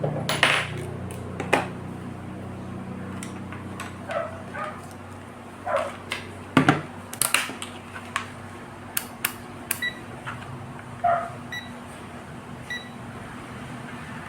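Scattered sharp clicks and knocks, as of parts or tools being handled, over a steady low hum. Near the end come three short, high electronic beeps.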